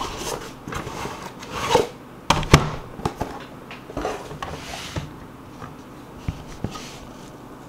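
Cardboard box of graded card slabs being opened and handled: rustling and scraping with sharp clicks and knocks in the first few seconds, then a soft sliding hiss and a few scattered light taps.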